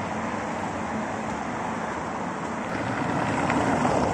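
City street traffic on wet roads: a steady hiss of tyres and engines that grows louder near the end as a vehicle comes closer.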